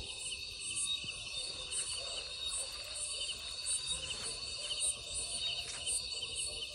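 Night chorus of crickets and other insects: steady, high-pitched chirping with a regular pulse.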